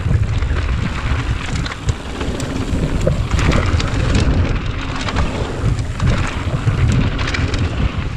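Mountain bike descending a dirt trail at speed: wind buffeting the camera microphone as a heavy low rumble, over the hiss of tyres on dirt and frequent small knocks and rattles from the bike over bumps.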